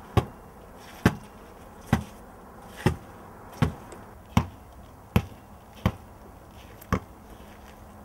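A ball being bounced on the ground nine times, one bounce just under a second apart, each a sharp, short smack.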